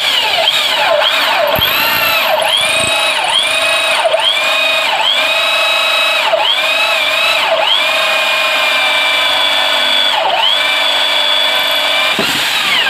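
INGCO ID6808 680-watt corded impact drill running a hole saw through a 2 cm board of reddish hardwood. Its motor whine dips in pitch and recovers about once a second at first as the saw bites, then runs steadier for longer stretches.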